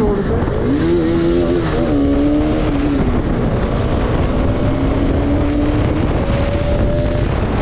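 Bajaj Pulsar RS200 motorcycle engine running on the move, its revs rising and dipping a couple of times in the first two seconds, then holding steady and climbing slowly.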